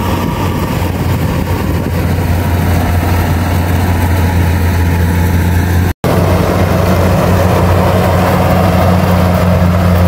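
Kubota rice combine harvester's diesel engine running steadily while harvesting, a constant low hum. The sound cuts out for an instant about six seconds in.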